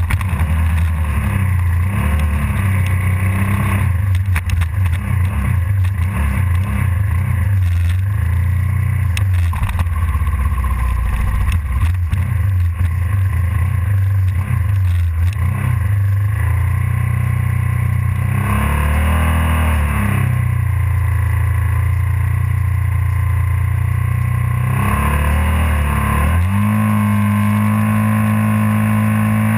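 Suzuki SV650 V-twin race bike engine idling, blipped twice with quick rises and falls in revs in the second half, then held at raised revs near the end.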